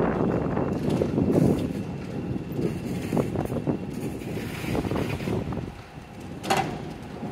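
Uneven rumbling noise with wind buffeting the microphone as it moves fast, and a single sharp knock about six and a half seconds in.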